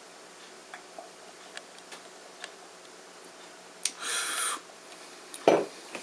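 A person drinking beer from a glass: small clicks and ticks of glass and lips, a short breathy rush about four seconds in, then a dull knock near the end, the loudest sound, as the glass is set down.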